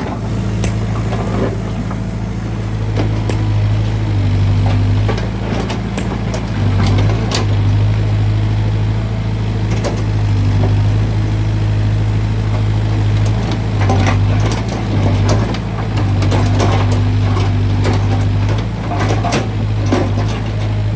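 Backhoe loader's diesel engine running steadily, its note swelling and dropping several times as it takes load, with scattered clanks and knocks from the digging.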